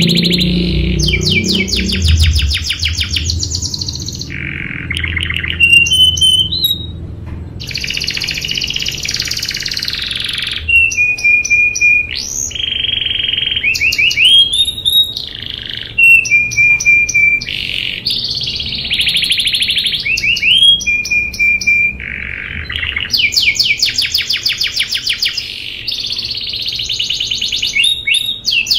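Domestic canary singing a long, varied song: rapid rolling trills, held whistled notes and rising slides, phrase after phrase with only brief breaks.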